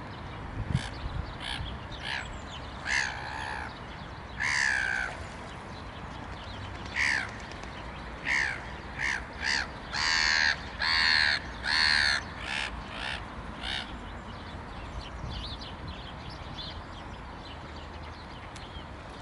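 Crows cawing off and on, a string of harsh calls that grows to a loud run of three long caws about ten to twelve seconds in, then fades to a few faint calls.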